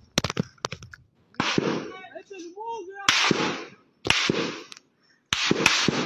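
Small-arms gunfire in a firefight. Single shots come about a second apart, each trailing off in a long echo, and a quick cluster of shots follows near the end.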